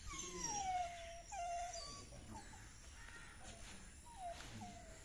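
Greyhound whining: one long whine falling in pitch at the start, then several shorter falling whines.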